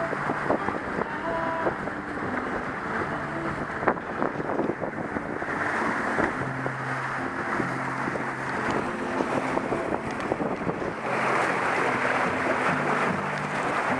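Wind buffeting the microphone and water rushing along the hull of a sailing trimaran under way. The rush swells about five seconds in and grows louder and brighter about eleven seconds in.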